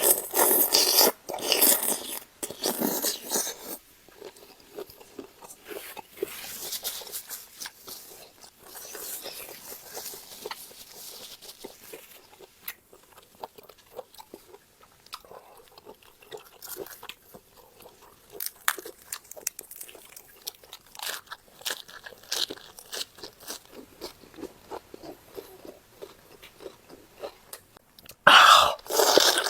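Close-miked eating: a person biting into and chewing squid with fresh raw vegetables, with crisp crunches. The bites are loudest in the first few seconds and again near the end, with quieter, steady chewing crackles in between.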